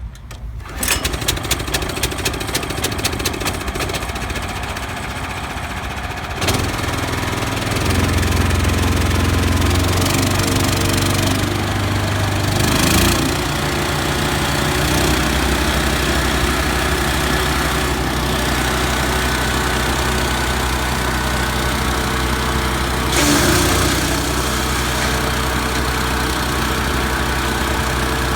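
A 15 HP, 420 cc Loncin single-cylinder petrol engine on a wood chipper shredder starts up about a second in with rapid firing strokes, then runs steadily. It speeds up about six seconds in, with brief louder surges twice later on.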